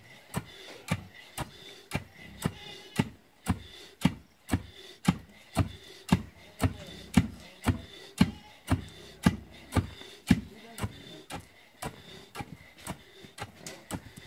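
Two long wooden pestles pounding maize in a tall wooden mortar, taking turns, giving a steady beat of dull thuds at about two a second.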